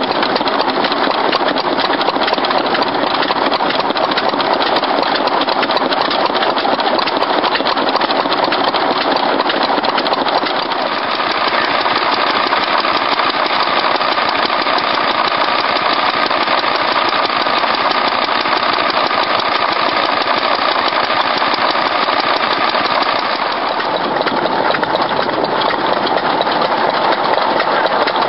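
Small vintage single-cylinder stationary engines running steadily, heard one after another: the engine sound changes character about ten seconds in and again near the end, as a Fowler engine and then a Lister engine driving a water pump take over.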